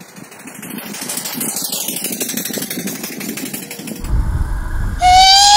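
Homemade steam motorcycle's steam engine running at speed with a fast exhaust beat, growing louder as it approaches. About five seconds in a steam whistle blows once for about a second, the loudest sound.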